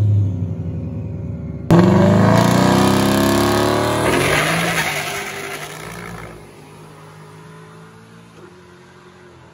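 Ford Mustang launching from a drag-strip start line. A low engine rumble gives way suddenly, about a second and a half in, to full-throttle acceleration with revs rising, then fades as the car pulls away down the track.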